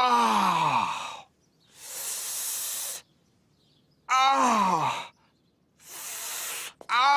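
A man's voice repeatedly groaning in pain, each groan sliding steeply down in pitch, alternating with a hiss of breath sucked through the teeth. The falling groan comes three times, with a hiss between each pair.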